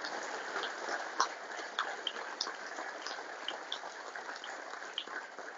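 Audience applauding, a spatter of separate claps that slowly dies away.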